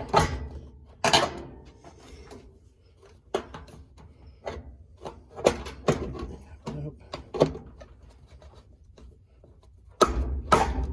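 Knocks and clicks of a washing machine's plastic control panel being handled and pressed back into place, a string of separate sharp knocks, with a louder stretch of rattling and rubbing near the end.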